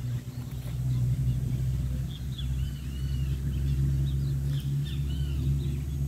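Birds chirping in short, arched notes, mostly in the middle few seconds, over a steady low rumble.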